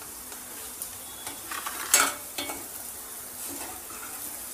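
Ground spices and chopped onion frying in hot oil in a metal kadai: a steady sizzle, with a steel ladle stirring and scraping the pan. A few sharp metal clinks about two seconds in, the loudest sound here.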